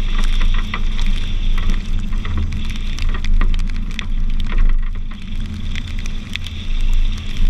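Raindrops ticking sharply and irregularly close to the microphone while a Nissan 350Z drives a wet road, over a steady low rumble of wind and road noise.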